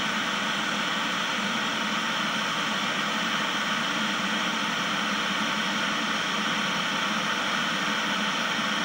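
Steady static hiss from a powered-up 1980 Sony Trinitron portable colour television.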